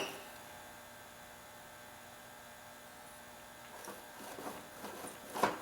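Low, steady electrical hum, with a few faint short handling sounds in the last two seconds.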